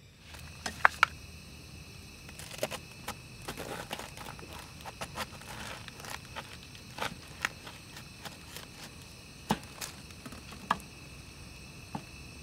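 Scattered small clicks and knocks of things being handled, the loudest about a second in, over a faint steady hiss.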